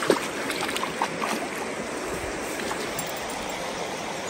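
A creek running high and fast after heavy rain: a steady rush of water over rocks, with a few light clicks in the first second and a half.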